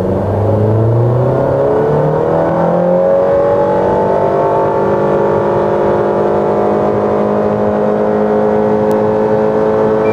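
Honda HR-V's 1.5-litre i-VTEC four-cylinder engine at full throttle through a CVT, heard from inside the cabin. The engine note rises over the first four seconds or so, then holds steady at high revs near 6,000 rpm while the car keeps gaining speed, as a continuously variable transmission does.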